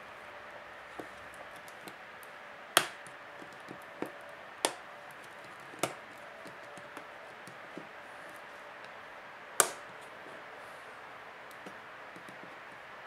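Sharp clicks and snaps of a Samsung Galaxy Tab 3's small internal parts being pried and unclipped with a small tool. Four loud clicks are spread over about seven seconds, with fainter ticks between them, over a steady low hiss.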